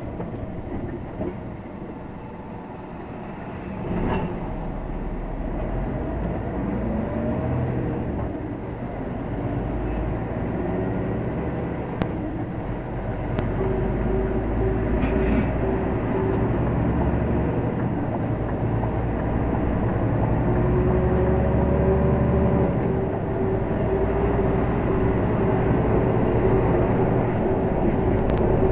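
Lorry cab interior as the truck rounds a roundabout and accelerates away: the diesel engine's low drone and road noise, growing louder as the speed rises, with a few faint clicks and rattles.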